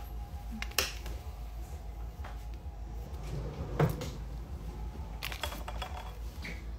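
Two sharp knocks about three seconds apart, like a cupboard or drawer shutting, with a few lighter clicks and rustling from things being handled.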